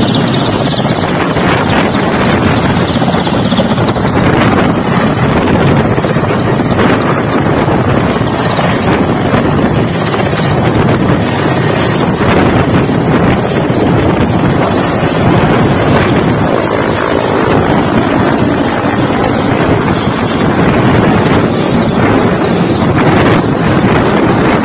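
Mil Mi-8-family twin-turbine helicopter at take-off power as it lifts off and climbs away overhead: a loud, steady din of rotor and turbine noise.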